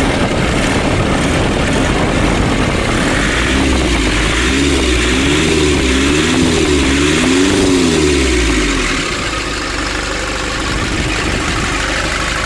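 Diesel engine of a 2005 Nissan Urvan van running, revved up and down several times in quick succession from a few seconds in, then settling back to a steady idle. The engine is running normally after its diesel pump was repaired.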